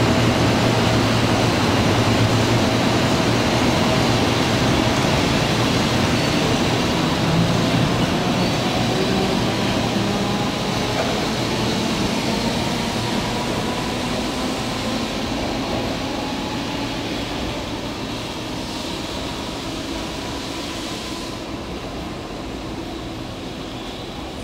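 A 0 Series Shinkansen train pulling out along the tracks: steady rolling and running noise with a faint motor whine that rises slowly in pitch as it gathers speed, the whole sound fading steadily as the train draws away.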